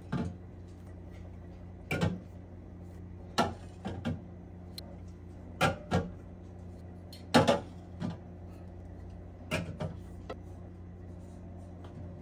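Aluminium soda cans set down one at a time on a glass refrigerator shelf and stacked, each a sharp clink-knock, about every one and a half to two seconds, several followed by a lighter second knock. A steady low hum runs underneath.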